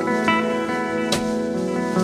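Instrumental background music with held chords and a single sharp beat about a second in.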